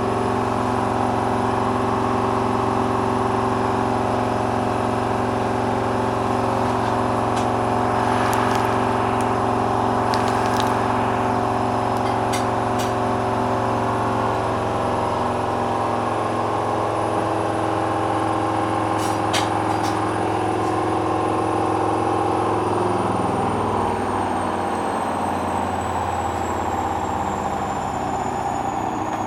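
Hoover washing machine's motor and drum in the final spin of a very unbalanced load, running at a steady pitch with a few light clicks and rattles. From about 23 s in, the pitch falls as the drum slows and the spin winds down.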